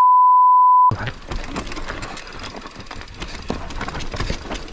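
A loud, steady, high censor bleep about a second long, with all other sound muted, then the clatter and rattle of a mountain bike descending a steep, rough dirt trail: tyres over roots and dirt, frame and chain rattling, with many short knocks.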